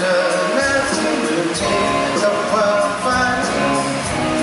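Live rock band playing, with electric guitars over a drum kit keeping a steady beat.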